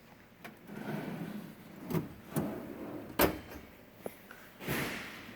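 Metal tool box drawers being slid shut and open, with rustling, several sharp metallic clunks (the loudest about three seconds in) and a rolling slide near the end.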